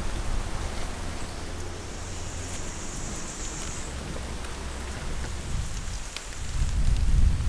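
Open wood fire burning with a steady hiss and a few faint crackles. A low rumble swells near the end.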